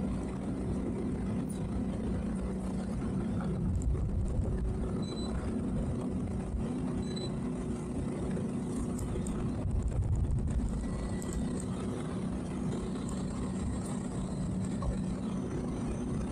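Towboat's engine running steadily at low speed under way, a continuous low hum. The low rumble swells briefly twice, about four and ten seconds in.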